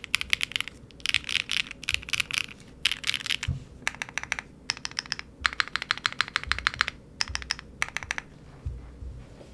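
Typing on a mechanical keyboard fitted with Keygeek x Sharkeys Pomkin linear switches, factory-lubed with POM stems and housings. Fast runs of keystrokes come in bursts with short pauses and stop about eight seconds in.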